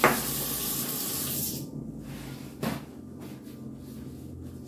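Kitchen tap running as a steady hiss of water, shut off about a second and a half in, followed by a single knock.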